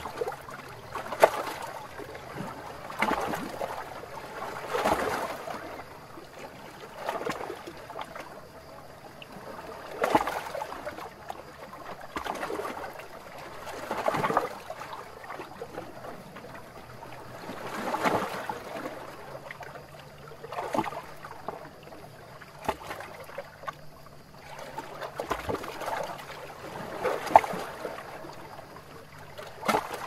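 Small sea waves lapping and splashing against shoreline rocks. The water swells and washes in irregular surges about every two seconds, some with a sharper splash.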